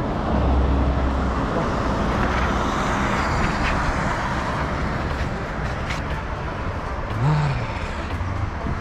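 Road traffic on a nearby road: a steady rush of tyres and engines, swelling as a vehicle passes about two to four seconds in.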